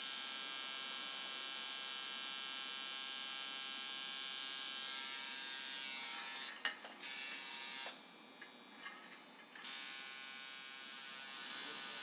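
Tattoo machine buzzing steadily. It stops briefly about six and a half seconds in, then again for about a second and a half, before starting up again.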